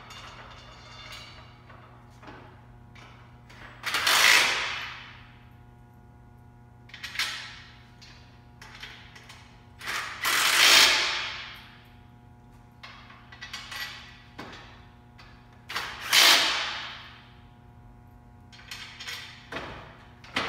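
Cordless drill/driver fastening the frame's bolts in a series of short bursts, roughly one every three seconds, with clicking between runs.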